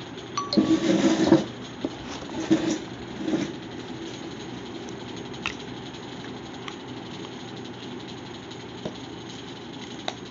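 A phone being handled and moved about: a cluster of rustling and knocks in the first second and a half, a couple more around two and a half and three seconds in, then a few soft clicks over a steady low hum.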